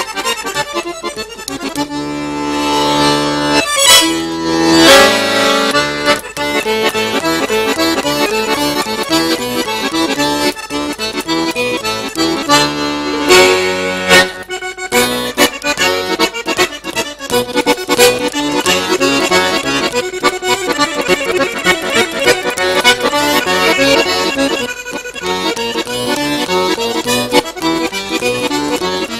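Fisart piano accordion played solo: held chords for the first few seconds, then a fast passage of quick-changing notes over the bass.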